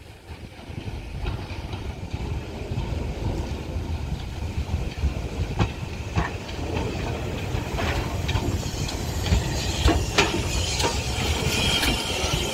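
BR Standard Class 4 2-6-4 tank steam locomotive moving slowly along the platform, getting louder as it comes close. There is a steady rumble with scattered metallic clanks, and a hiss of steam near the end.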